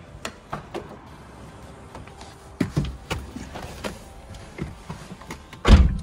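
Light scattered knocks and clicks, then a Nissan 370Z's door shutting with one heavy thud near the end.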